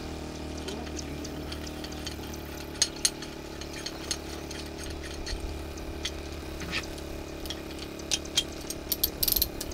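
Scattered sharp metal clicks and clinks of a hand tool and holding plate on an OS MAX 105HZ-R model helicopter glow engine during an engine swap, with a quick run of clicks near the end, over a steady low hum.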